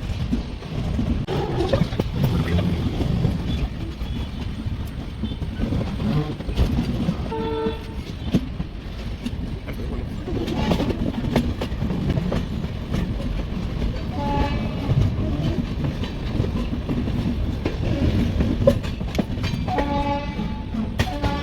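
Passenger train coach rumbling along the track in motion, with short train horn blasts about seven seconds in and again near the end.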